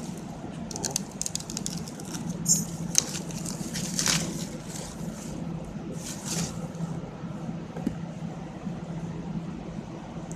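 Clear plastic wrapping crinkling and tearing as it is pulled off a phone box, in runs of crackles through the first few seconds and again about six seconds in, over a steady low hum.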